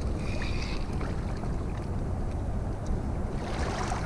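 Steady low rumble of wind and moving river water, with a brief high-pitched chirp in the first second and a short hissing rustle near the end.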